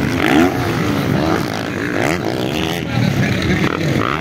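Motocross dirt bike engines revving hard, several at once, their pitch rising and falling again and again as the bikes take the jumps.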